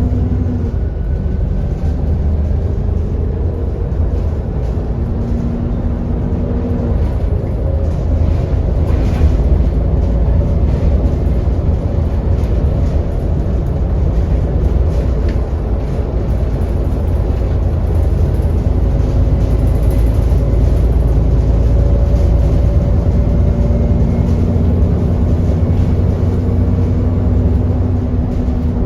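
ADL Enviro400 double-decker bus on the move, heard from inside: a steady low engine and road rumble with humming tones that fade out about a quarter of the way in and come back near the end.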